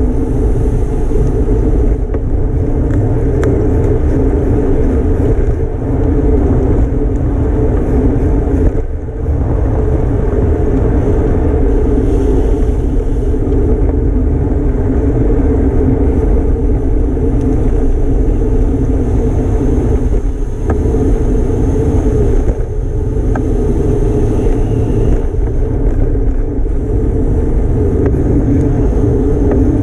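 Steady wind rushing over the microphone of a camera riding in a bicycle road race at racing speed, with tyre and road noise underneath. The rush dips briefly about nine seconds in and again around twenty seconds.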